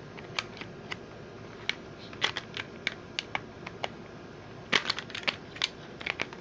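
Hard plastic Hot Wheels Track Builder parts clicking and tapping as they are handled and fitted together, a launcher going onto its base. The clicks are irregular and come in small clusters, thickest just after the middle.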